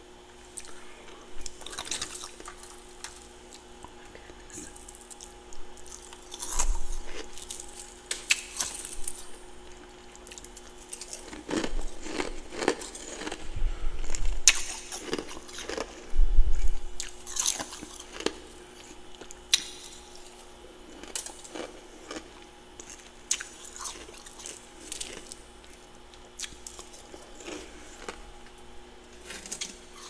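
Soft, powdery freezer frost being crunched and chewed close to the microphone, in irregular crackling bites that come thickest around the middle. Underneath runs a faint steady hum.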